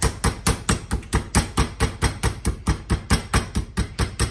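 Meat mallet pounding chicken breasts flat between sheets of plastic wrap on a cutting board, in a steady run of about four blows a second.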